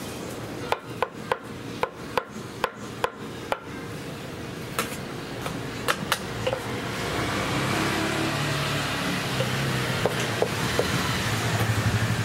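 Kitchen knife chopping boiled pig organs on a wooden cutting board: a quick run of about eight even chops, roughly three a second, then scattered single chops. A steady rushing background noise grows louder through the second half.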